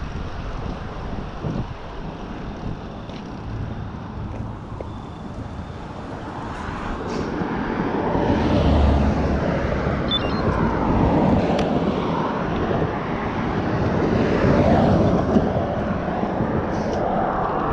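Wind rushing over the microphone of a cyclist's camera while riding, with a low rumble; it grows louder about eight seconds in.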